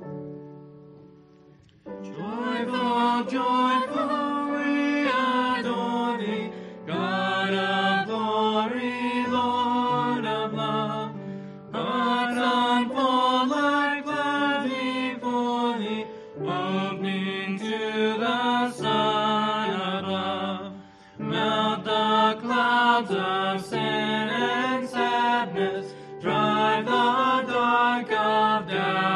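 A woman and two men singing a hymn together into one microphone, over sustained keyboard chords. The singing comes in about two seconds in after a short instrumental lead-in, and goes on in phrases with brief breaths between them.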